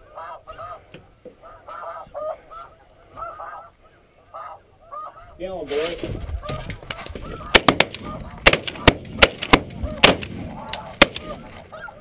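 Snow goose calls honking over the decoy spread, then from about five and a half seconds a rush of rustling noise and, over the next few seconds, a volley of about a dozen sharp shotgun blasts.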